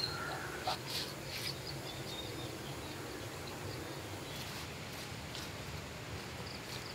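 Rice grains rustling and rattling as a hand sifts through them in a woven cane winnowing basket, with a few short rustles about a second in and a few more later. Behind it, a steady outdoor background of insects and occasional faint bird chirps.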